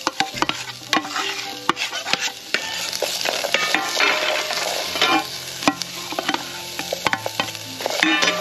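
Chopped onions and bacon sizzling as they fry in hot oil in a small Trangia cook pot, with a utensil clicking and scraping against the pot as they are stirred.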